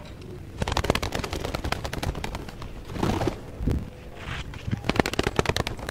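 Pigeon wings flapping: fast runs of clattering wingbeats in several bursts, the longest starting about half a second in.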